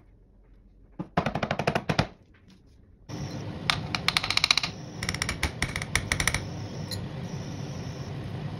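A carrot is rasped on a metal box grater for about a second, a fast rattle of scraping strokes. Then a hot pan on an induction hob gives a steady hiss and hum with a faint high whine, and two bursts of fast crackling come as melted ghee is spooned into the hot oil.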